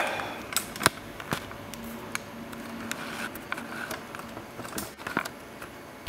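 Camera handling noise: scattered light clicks and rubs as a handheld camera is moved in close, over a low room background.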